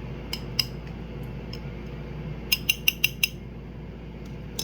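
Kitchenware clinking: a couple of light clicks, then five quick ringing clinks about two and a half seconds in, like a utensil tapping against a dish.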